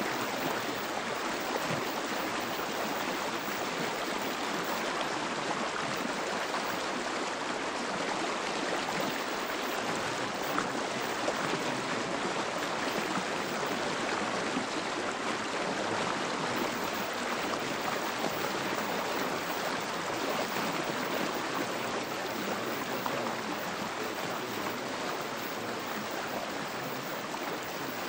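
A steady, even rushing noise like a running stream, with no tones or rhythm: the background track of a subliminal audio, with affirmations embedded beneath it.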